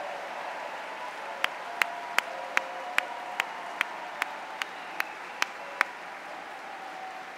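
A large crowd applauding steadily, with one person's claps standing out close up, about two and a half a second, from about a second and a half in until near six seconds.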